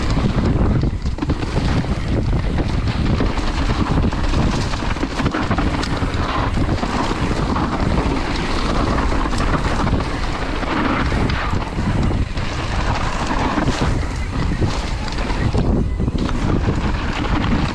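Wind buffeting the microphone on a fast mountain bike descent, over the steady rumble of knobby tyres rolling on a dirt singletrack, with frequent short rattles and knocks as the bike runs over bumps.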